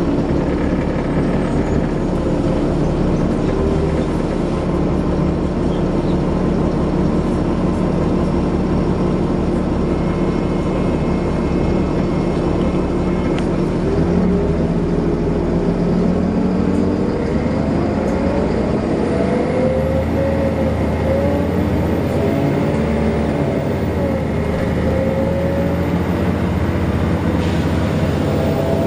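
Interior sound of a Volvo B7LA Wright Streetcar articulated bus under way: steady engine and road rumble, with the engine note sliding up and down as the bus accelerates and slows.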